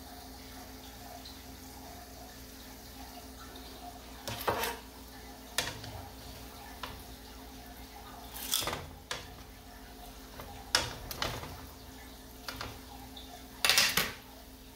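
Nom kong, Cambodian glutinous-rice ring donuts, deep-frying in oil in a wok: a steady faint sizzle. Metal tongs click against the pan several times as the donuts are turned, loudest about halfway through and near the end.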